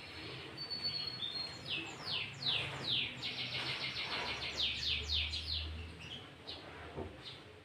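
Sooty-headed bulbul (kutilang) singing loudly, its song laced with greater green leafbird (cucak ijo) phrases: a run of quick, high, downward-sweeping notes with a fast chattering trill in the middle.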